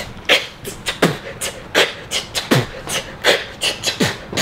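A man beatboxing into his cupped hands: a steady beat of deep kick-drum booms alternating with sharp snare-like hits, about two to three sounds a second.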